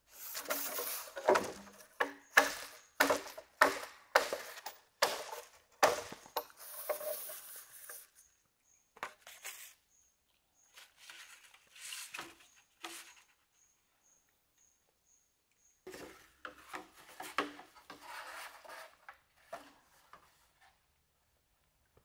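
Green bamboo poles knocking and scraping as they are handled: a quick run of sharp wooden knocks, then scattered ones after a pause, with a second cluster near the end.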